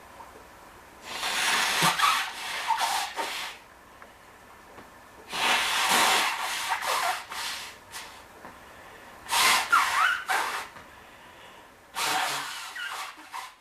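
A man blowing his nose forcefully four times, each blow a couple of seconds of rushing air with brief squeaky whistles.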